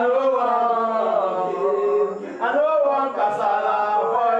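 A voice singing long, held, chant-like lines of a song, with a short break about two seconds in and another just after the end.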